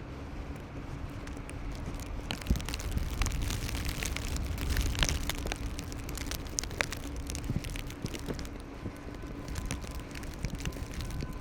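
Street ambience in a blizzard: a steady low wind rumble on the microphone, with dense, irregular crackling clicks that are thickest in the middle.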